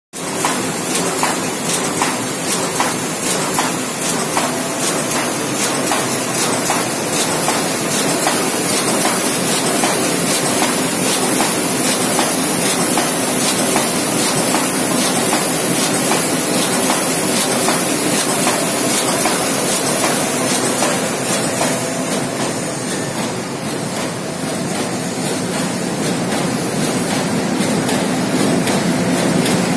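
SimSun Alpine-145 sheet-fed UV spot coating machine running: steady mechanical clatter with rapid, even ticking, over a strong hiss of air from the sheet feeder's suction and blower head. The sound eases slightly near the end.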